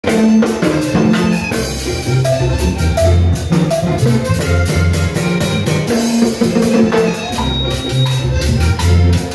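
Live band playing upbeat Latin dance music: electric keyboard, drum kit and guitar over a bass line with a steady beat.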